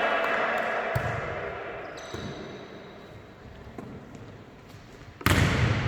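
Volleyball being struck and bouncing: a few dull thumps, then a loud thump near the end. Players' voices are heard at the start.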